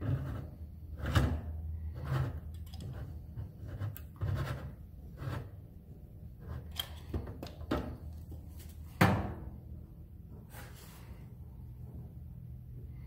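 Caulking gun squeezed repeatedly, its trigger and plunger giving irregular clicks and clacks as high-temperature silicone is laid around a stovepipe joint, with one loud knock about nine seconds in as the pipe is handled.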